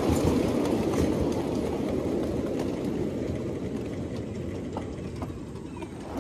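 Steady rolling rumble of a 7.5-inch gauge live steam train's cars running on the rails, growing gradually quieter toward the end.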